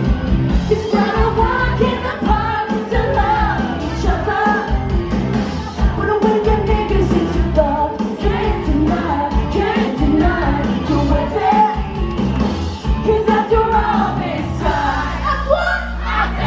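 Live pop song: a woman singing over a band or backing track with a steady beat and bass; near the end the backing settles into long held low notes.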